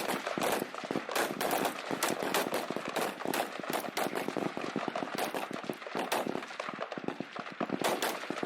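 A line of M16-family service rifles firing at once: many rapid, overlapping shots with no pause.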